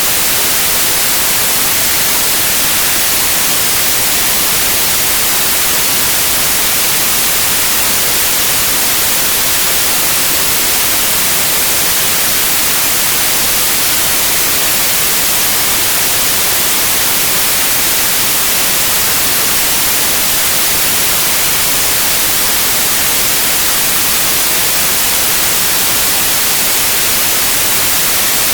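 Synthetic white noise: a steady, loud, even hiss, brightest in the highs, with no change throughout.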